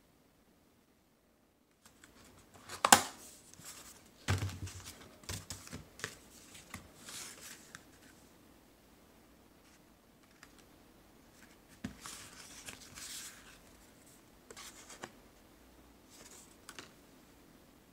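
Postcards and paper being handled and slid over one another: scattered rustles, taps and a few sharp clicks, the loudest a click about three seconds in followed by a dull thump, starting after a near-silent first two seconds.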